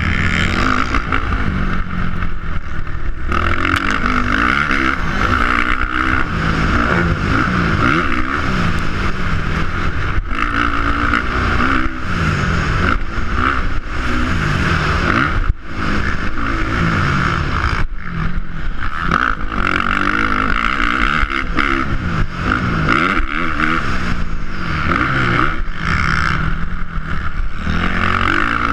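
Dirt bike engine revving up and down again and again as it is ridden hard around a motocross track, heard from the rider's helmet camera. The throttle is chopped briefly twice around the middle.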